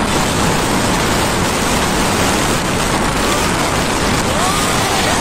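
Steady rushing wind and road noise on the microphone of a vehicle driving along behind a truck, with a few faint short pitched glides near the end.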